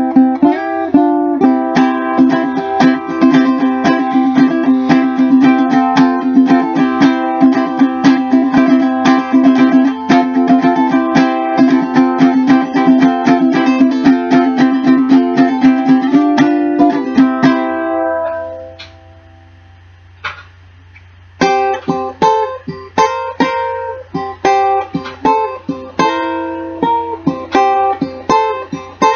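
All-cocobolo tenor ukulele played solo, a fast stream of picked notes and chords. The phrase rings out and stops about eighteen seconds in, and a new picked passage begins about three seconds later.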